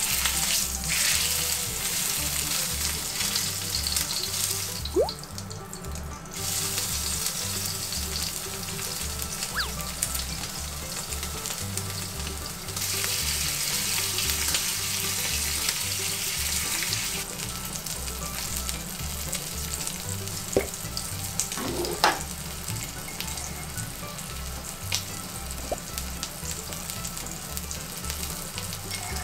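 A block of pork belly searing in olive oil in a nonstick frying pan: a steady sizzle that swells twice and eases off in between. A few sharp clicks ring out over it, the loudest about three-quarters of the way through.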